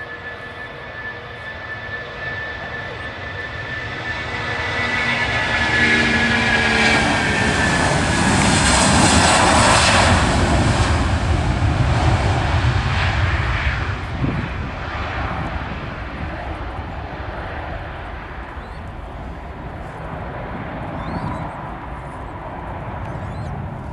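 Boeing 757 jet engines (Rolls-Royce RB211s) at take-off power as the airliner rolls, lifts off and climbs away. A high fan whine slides down in pitch as it passes. The jet noise swells to its loudest about nine to ten seconds in, then eases to a lower rumble as it climbs.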